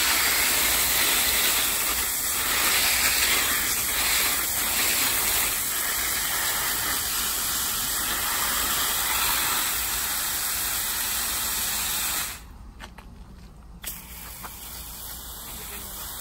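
Garden hose spray nozzle hissing steadily as a fan of water sprays onto plants. About three-quarters of the way through the hiss drops away suddenly, then comes back softer.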